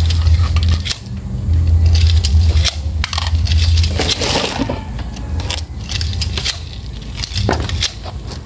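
Light clinks, rattles and scrapes of metal and cable being handled on a concrete floor, over a low hum that comes and goes.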